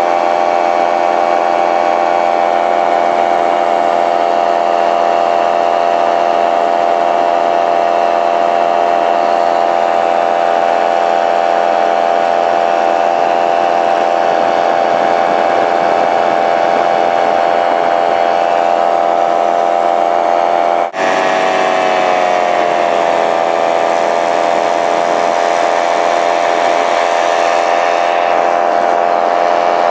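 Paramotor engine running steadily at cruise power, heard from the pilot's seat. About two-thirds through there is a brief break, after which the engine note drops a little and settles.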